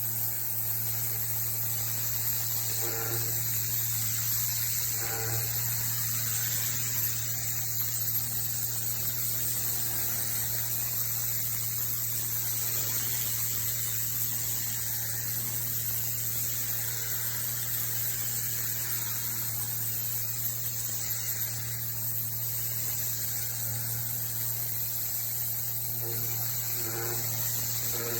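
High-pressure washer running continuously: a steady motor or pump hum under the loud hiss of the water jet spraying onto paving.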